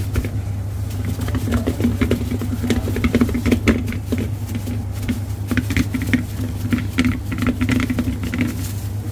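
Steady hum of kitchen machinery with many quick light clicks and taps of hands and utensils at work on a steel counter.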